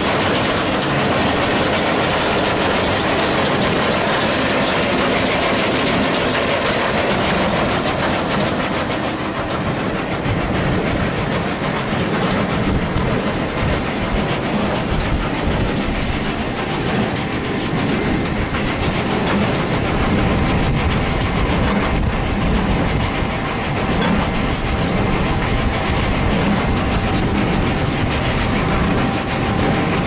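Massey-Ferguson 2190 large square baler running on its tractor: a steady mechanical clatter over a low engine rumble, with the rumble growing stronger about halfway through.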